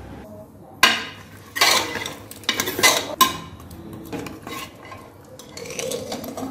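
Metal ladle scraping and knocking against the inside of a pressure cooker pot while stirring mutton chops in their broth. There is a sharp clank about a second in, then a run of scraping strokes and a few softer ones near the end.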